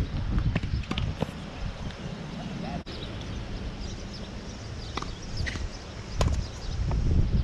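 Tennis ball struck by rackets and bouncing on a hard court: a few sharp pops near the start, then more after a short break, over a steady low rumble.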